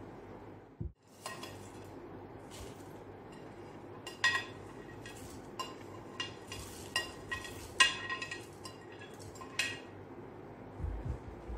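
A metal spoon scraping and clinking against a glass bowl as roasted whole spices are tipped into a mixer grinder jar. About ten sharp, ringing clinks come at irregular intervals through the middle of the stretch.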